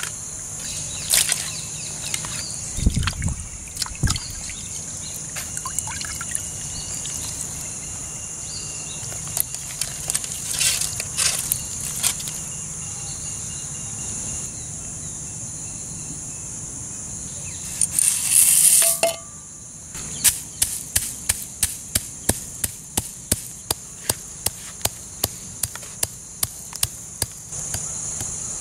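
Hands swishing raw prawns in a clay pot of water, with splashes and trickles. About 18 seconds in comes a brief rush of poured water. From about 20 seconds a pestle pounds in a mortar in a quick, steady beat of more than two strokes a second, stopping near the end.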